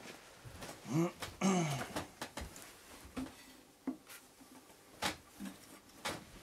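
Scattered light knocks, taps and shuffles of a person moving about on a carpet and handling a metal-cased power inverter, with two short falling tones about a second in.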